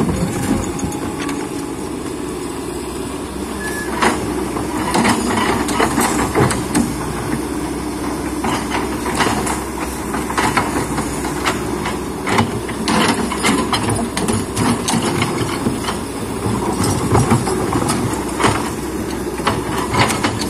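Excavator's diesel engine running steadily under work, with frequent sharp knocks and rattles from about four seconds in, as the machine handles stones and mud.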